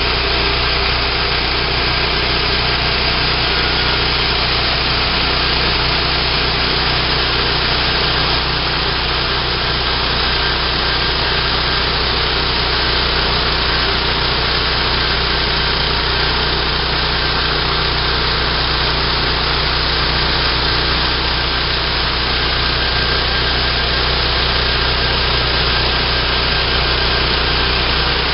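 Small gasoline engine running steadily under load, driving a homemade bandsaw mill whose blade is sawing through a log.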